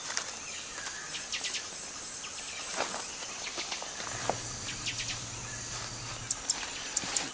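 Amazon rainforest night chorus of insects and frogs: a steady high insect whine with scattered chirps and short calls. A low hum runs for about two seconds midway, and a few sharp clicks come near the end.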